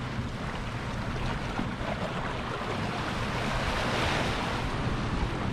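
Sea waves washing and breaking against shoreline rocks, with wind rumbling on the microphone. A wave surge swells up about four seconds in and eases off.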